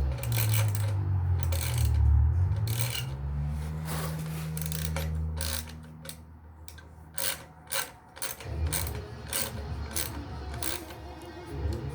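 A hand tool worked in short repeated rasping strokes on the engine, the strokes coming faster in the second half. Low radio music runs under it in the first half.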